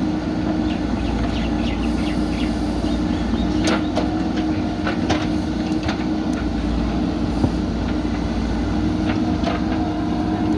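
Backhoe loader's diesel engine running steadily at a constant pitch, with a few sharp metallic knocks over it.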